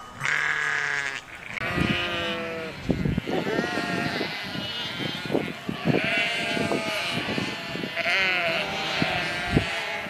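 A flock of sheep bleating, with many wavering calls overlapping one another.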